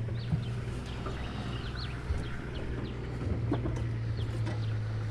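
Birds calling, many short high chirps and cackles overlapping, over a steady low hum.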